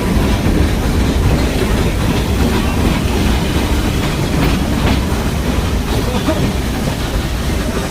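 Ooty toy train of the Nilgiri Mountain Railway running on the track: a loud, steady rumble of the wheels on the rails, with a few knocks about halfway through.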